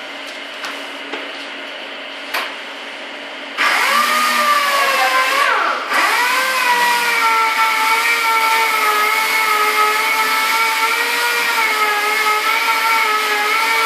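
Airbrush hissing as it sprays paint, with a few light clicks. About three and a half seconds in, a small electric motor starts with a loud, steady whine that dips and wavers in pitch for a couple of seconds before settling.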